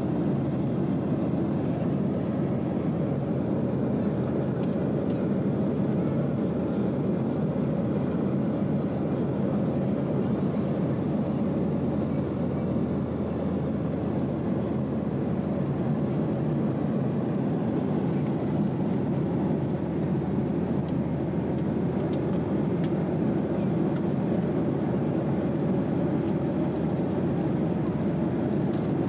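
Steady engine and airflow noise inside the cabin of a Boeing 737-700 with CFM56-7B engines, an even low rushing hum with no change in pitch or level.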